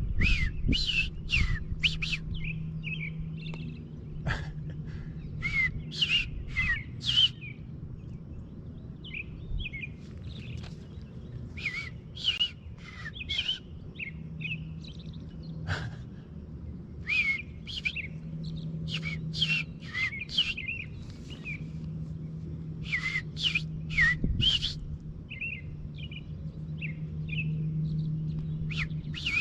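Songbirds singing: groups of three or four quick chirping notes, repeated every second or two, over a faint low hum.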